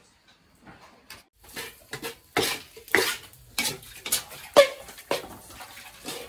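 A cooking utensil scraping and clinking against a pot while food is stirred and tossed. The strokes start after a quiet first second or so and come about twice a second.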